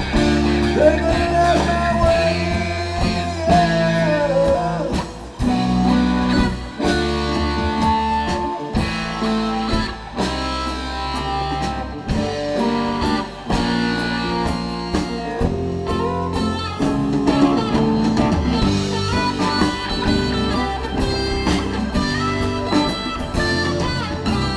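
Live electric band playing an instrumental blues-rock jam: electric guitars over drums and keyboards, with a long bending lead note in the first few seconds.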